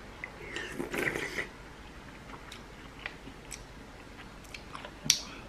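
Close-up sounds of a person eating ramen noodles: a burst of slurping and chewing about a second in, then scattered small clicks, the sharpest near the end.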